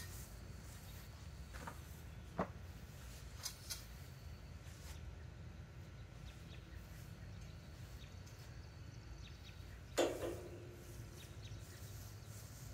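Quiet outdoor background with a low steady hum and faint thin high tones. Over it come a few light clicks and knocks as a long black curtain rod is handled up onto its brackets; the loudest is a single knock with a short ring about ten seconds in.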